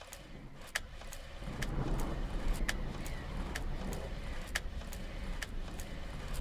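Low rumbling ambient drone swelling in about a second and a half in, with sharp crackle-like clicks roughly once a second: the opening of the outro sound bed.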